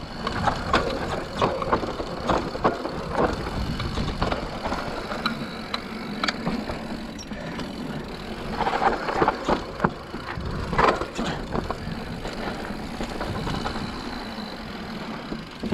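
Mountain bike rolling fast down a dry dirt trail: Maxxis knobby tyres (Assegai front, DHR II rear) running over packed dirt and loose rock, with the bike rattling and knocking over bumps, heaviest about 9 and 11 seconds in.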